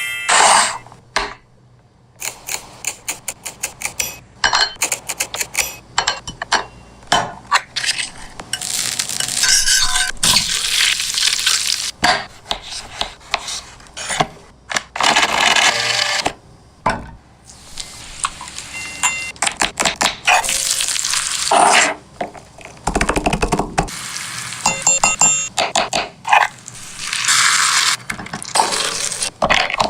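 Kitchen cooking sounds: utensils clattering and knocking against pots and pans, with several stretches of hissing sizzle lasting a few seconds each.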